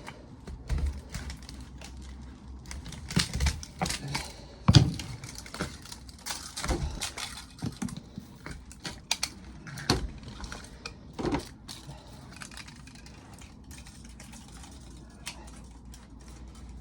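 Irregular clicks, clinks and knocks of metal parts and tools being handled while a scrap washing machine motor is stripped for its copper. The clicking is busiest in the first twelve seconds, with one loud clack about five seconds in, then thins to scattered ticks.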